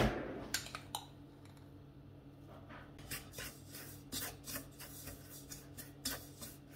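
Wooden spoon stirring dry flour and semolina in a stainless steel bowl: a knock at the start, then from about three seconds in soft scraping strokes, about three a second.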